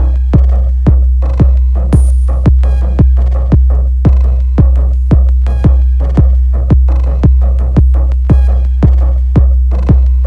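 Electronic background music with a steady drum-machine kick beat of about two beats a second, heavy bass underneath and synth tones above.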